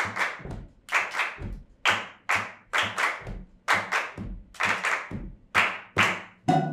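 A small group claps in unison, a steady rhythm of paired claps, two about every second. Band instruments come in at the very end.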